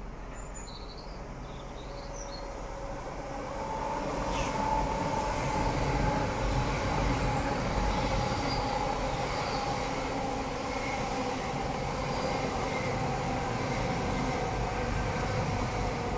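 GWR Class 800 bi-mode express train running on its underfloor diesel engines as it approaches and passes. It is a steady rumble with a droning engine whine, growing louder about four seconds in and staying loud.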